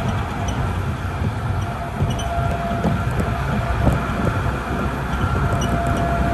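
Cabin noise of an airport people-mover tram running along its guideway, heard from inside: a steady low rumble with a faint constant whine.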